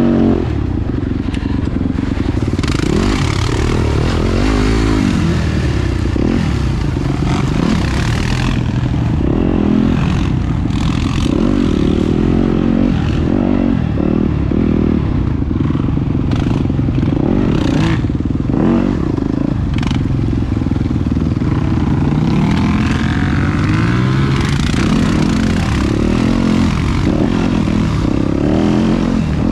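A 2017 Yamaha YZ250FX single-cylinder four-stroke dirt bike engine running on the move, its pitch rising and falling again and again as the throttle is opened and closed over the trail.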